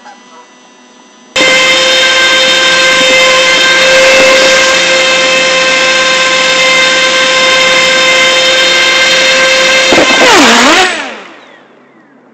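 RC airboat's motor and air propeller cutting in suddenly at full throttle with a loud, steady high whine, then dropping in pitch and dying away as it throttles down about ten seconds in.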